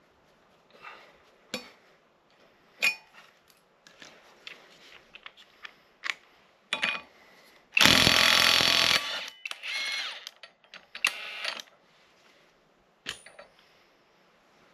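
Metal tools clinking and clanking while an ATV is taken apart, with a power tool, such as an impact wrench or drill, run in a loud burst of about a second near the middle and twice more, more briefly, just after.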